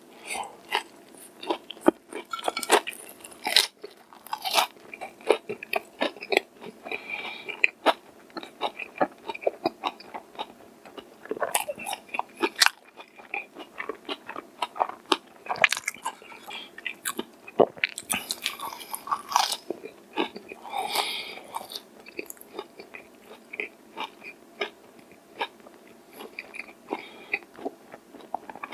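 Close-up eating sounds: biting into and chewing crispy, crumb-coated fried chicken, with many irregular sharp crunches and chewing between them.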